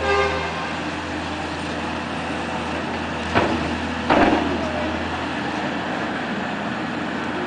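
Amphibious excavator's diesel engine running steadily at work, with two sharp knocks about three and a half and four seconds in.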